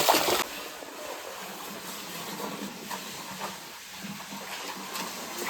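Water splashing that cuts off abruptly in the first half second, then a quieter steady rush of stream water.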